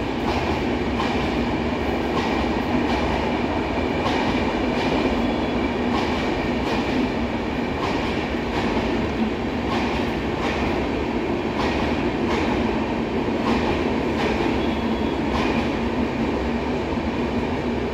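Express train running through a station without stopping, its coaches passing in a continuous rumble with a clickety-clack of wheels over rail joints, clicks coming less than a second apart.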